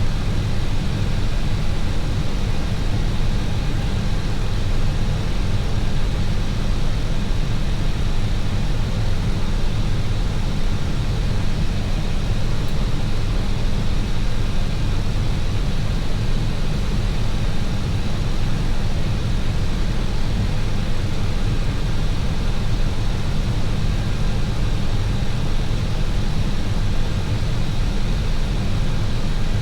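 Steady flight-deck noise in an Airbus A321 on descent: airflow and engine noise as an even deep rumble with a hiss on top and a faint, steady high whine.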